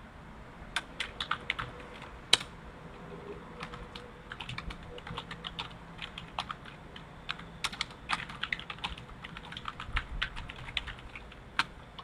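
Typing on a computer keyboard: irregular runs of key clicks with short pauses between words, and one louder click about two seconds in.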